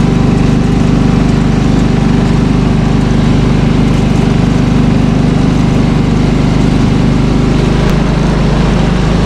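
Small engine running steadily, a constant low hum with its lower tones shifting slightly near the end.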